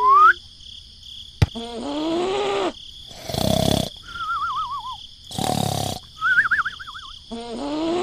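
Cartoon snoring sound effect. A drawn-out nasal snore is followed by a short noisy snort and a wavering whistle on the breath out, and the snore-snort-whistle cycle comes round twice.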